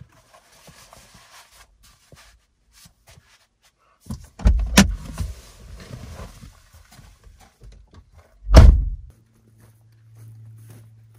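Subaru Outback driver's door unlatched with a sharp click, shuffling as someone climbs out of the seat, then the door shut with a heavy thud near the end.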